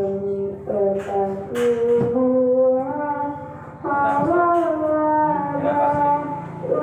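A voice chanting in long, drawn-out melodic notes that step up and down in pitch, with breath pauses about two seconds in and again near four seconds, over a steady low hum.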